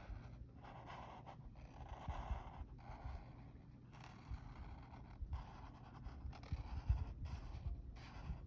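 A pen scratching on paper in repeated back-and-forth strokes as a shape is coloured in, with short pauses between strokes and light knocks from handling.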